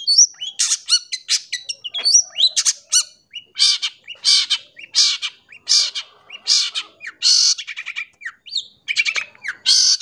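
Long-tailed shrike (cendet) singing: a fast run of chirps and quick whistled sweeps, then a string of harsh, rasping notes about every two-thirds of a second, before the chirping picks up again near the end.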